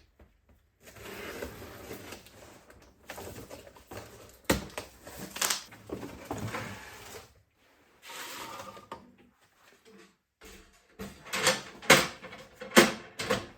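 A box being unpacked: stretches of rustling and scraping from cardboard and packing material, broken by several sharp knocks and clatters of parts being handled, loudest about four to five seconds in and again near the end.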